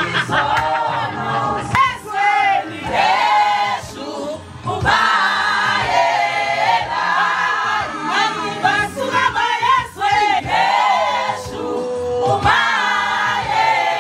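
Music: a choir of voices singing together.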